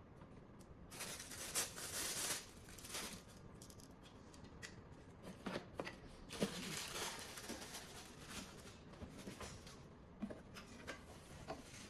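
Rustling and scraping of electrical cords being pulled and handled against a cardboard box, with a few light clicks and knocks; the longest stretches of rustling come about a second in and again past the middle.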